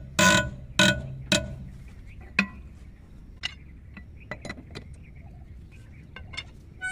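Steel wrench clanking and clinking on the wheel nuts of a backhoe loader's wheel as the nuts are tightened. Four loud ringing metallic clanks come in the first two and a half seconds, followed by lighter scattered clinks.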